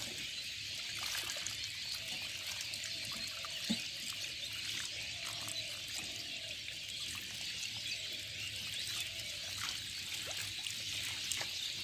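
Water pouring and trickling steadily through a fishing net trap, with one small knock about a third of the way through.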